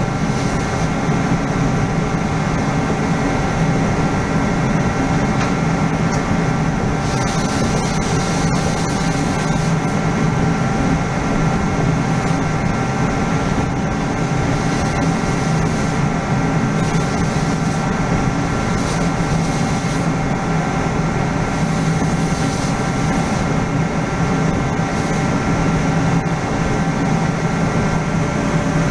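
Steady machinery drone with a low hum and several held tones, and a high hiss that swells and fades every few seconds.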